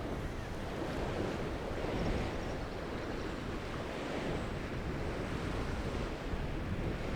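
Wind blowing over the microphone: a steady, low rushing noise with no distinct events.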